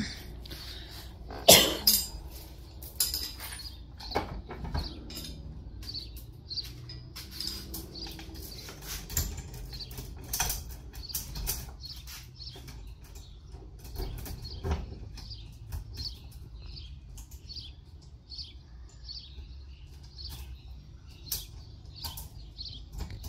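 Metal clinks and knocks of tools and bolts as an engine is fitted to an engine stand, with one loud knock about a second and a half in, then scattered light clicks.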